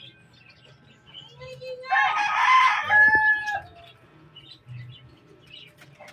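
A rooster crowing once, about two seconds in: a rough rising start followed by a long held note that drops off at the end.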